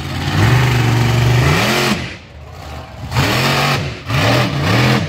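Monster truck engine held at high revs for about two seconds, then easing off and revved up and down three times in quick blips.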